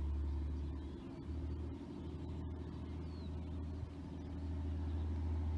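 TransPennine Express Class 185 diesel multiple unit passing very slowly, its diesel engines giving a steady low hum.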